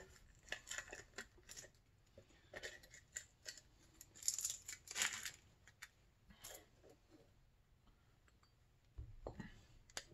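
Hands working masking off a freshly powder-coated engine cylinder: a run of small clicks and scrapes, with a longer rasping peel about four to five seconds in. A soft thud near the end as the cylinder is lifted and turned.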